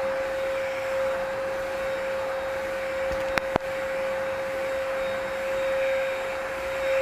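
Dibea C17 cordless stick vacuum running: a steady whine over a rush of air. Two sharp clicks come in quick succession about halfway through.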